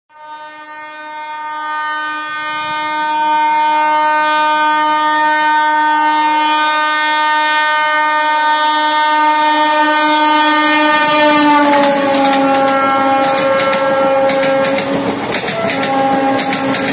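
Passenger train's locomotive horn blowing continuously as it approaches at speed, growing louder, then dropping sharply in pitch as the locomotive passes. After that the horn keeps sounding at the lower pitch with a short break, over the quick clatter of the coaches' wheels on the rail joints.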